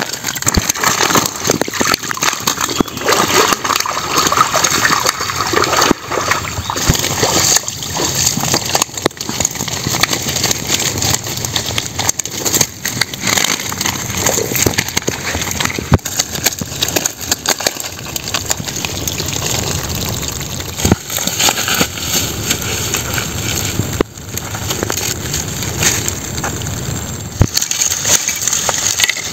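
Water splashing and sloshing around a net fish trap full of live fish and crabs being handled in a stream, with several sharp knocks along the way.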